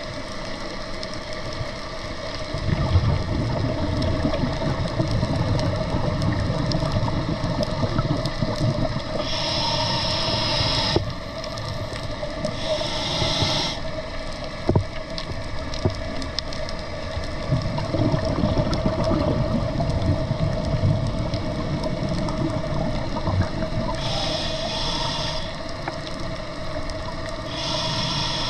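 A scuba diver breathing through a regulator underwater: short hissing inhalations and long bubbling exhalations that come every few seconds, over a steady hum.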